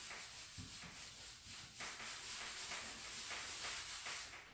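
Cloth rag rubbed back and forth over the painted side of a nightstand, working in black furniture wax, in quick repeated strokes of about three a second with a short break just under two seconds in.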